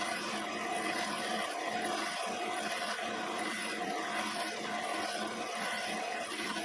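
Quorn tool and cutter grinder running, its cup wheel grinding an end mill's flute to deepen the gullet behind the cutting teeth. A steady motor hum with a hiss of grinding over it, unbroken throughout.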